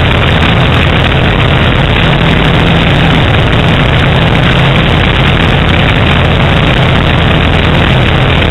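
Light single-engine propeller plane in flight, its piston engine and propeller holding a steady drone under a heavy rush of airflow, heard from a camera mounted on the wing.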